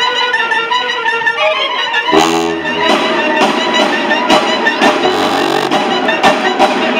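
Marching band with trumpets, trombones and sousaphones playing. High sustained notes come first, then about two seconds in the full band comes in loud, with deep sousaphone notes and sharp percussion hits.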